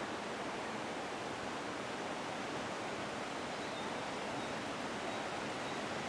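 Steady rush of a mountain stream, an even hiss of flowing water.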